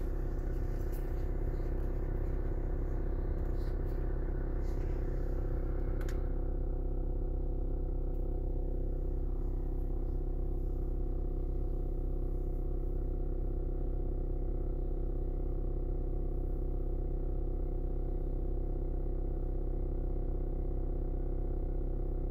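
Steady low engine hum with a stack of even, unchanging tones, heard from inside the cabin: the 2011 VW Caddy Mk3's engine idling. A few faint ticks sound in the first few seconds.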